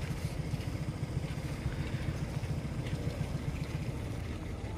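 Heavy diesel engine idling, a steady low rumble with a fast, even pulse.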